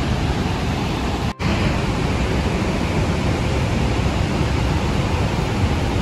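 Steady roar of Niagara's Horseshoe Falls, heavy water pouring over the brink and crashing into the plunge pool. It breaks off for an instant about a second and a half in.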